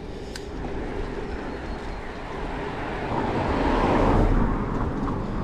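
A passing motor vehicle, its noise swelling to a peak about four seconds in and then fading, over wind rumbling on the microphone of a moving bicycle.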